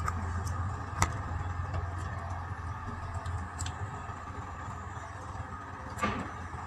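Steady low background hum with a faint hiss, broken by a sharp click about a second in and another near the end, with a few fainter ticks between.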